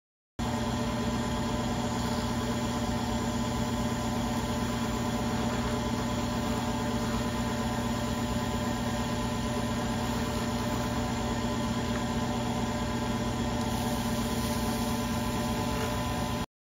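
Lathe motor running at a steady speed, an even hum with a few fixed tones that does not change. It starts abruptly just after the start and cuts off abruptly near the end.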